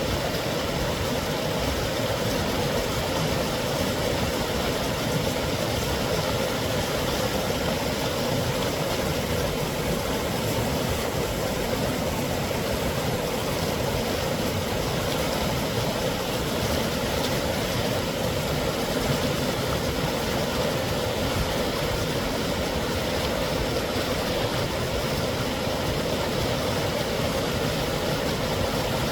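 Mountain creek cascading over rock ledges: a steady, unbroken rush of falling water with no pauses or changes.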